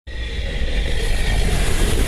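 Channel-intro sound effect: a loud rushing noise over a deep rumble, starting abruptly and swelling slightly in the first second.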